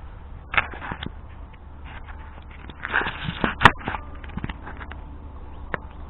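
Handling and rummaging noises: scattered rustling with several light clicks and knocks, the loudest a sharp click about three and a half seconds in.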